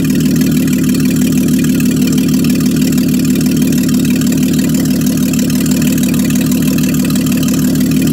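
Mercedes-Benz six-cylinder engine running steadily at idle, with an even, rapid pulsing and no revving.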